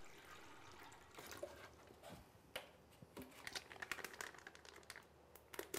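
Faint sound of water poured from a plastic cup into a urinal bowl, trailing off in the first second, followed by soft scattered clicks and crinkles as a plastic sealant packet is handled.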